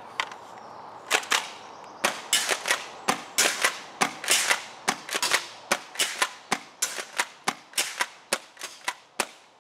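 CYMA CM352 airsoft pump-action triple-shot shotgun fired over and over, the pump worked between shots, with its BBs smacking into corrugated metal sheeting. It is a rapid run of sharp cracks and metallic clatters, several a second, getting quieter near the end.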